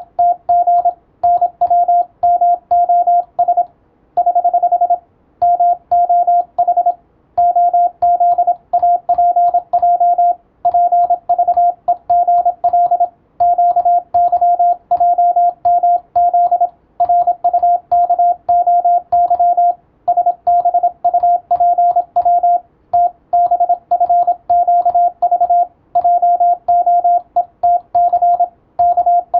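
Morse code (CW) sent as a single steady beep keyed on and off in dots and dashes, with short gaps between characters and longer gaps between words.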